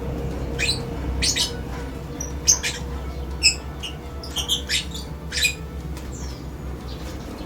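A caged bird giving short, sharp, high chirps and squawks, about a dozen scattered irregularly, some dropping in pitch, over a steady low hum.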